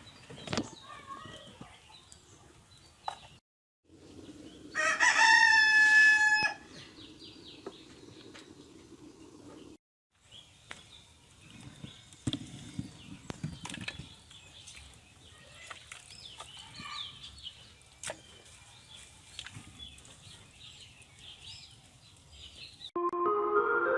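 A rooster crows once, about five seconds in: one long pitched call lasting about a second and a half. Faint bird chirps and small clicks follow.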